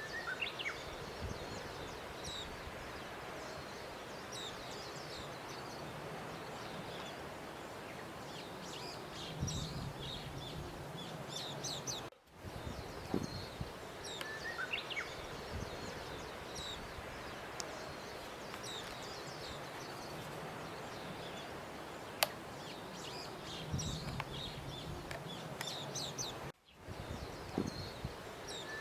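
Outdoor nature ambience: small birds chirping over a steady hiss of background noise. It cuts out briefly about 12 seconds in and again near the end, as the ambience track starts over.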